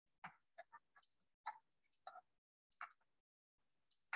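About a dozen faint, irregular clicks and taps of a stylus on a pen tablet during handwriting.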